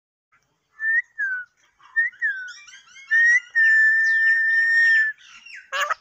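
Alexandrine parakeet whistling: a few short rising-and-falling whistle notes, a quick run of chirpy notes, then one long steady whistle lasting about a second and a half. A harsher, lower, talk-like call begins right at the end.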